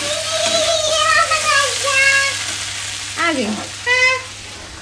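A steel spatula scraping and stirring cooked vegetable bhujia in a hot iron kadai while it is served out, over a steady sizzling hiss. A voice calls out over it in the first half and briefly again near the end.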